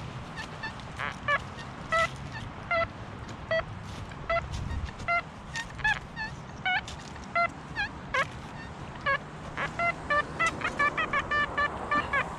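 Metal detector sounding short electronic target beeps as the coil sweeps over wood chips, some bending in pitch. They come scattered at first, then in a quick run of beeps near the end, as the coil passes over foil and iron trash.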